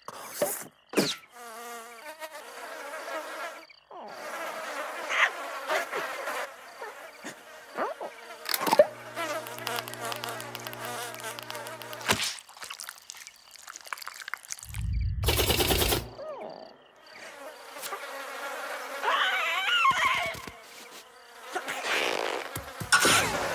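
Cartoon sound effects dominated by a buzzing, insect-like drone that wavers in pitch, with a steady low hum partway through and a short, loud burst about fifteen seconds in.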